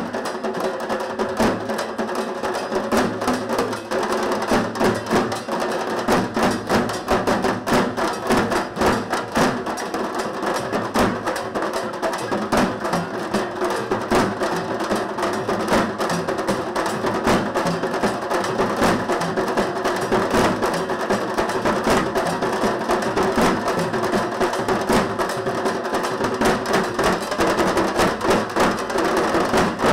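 An ensemble of dhak, large Bengali barrel drums, beaten with thin sticks in a fast, dense, continuous rhythm.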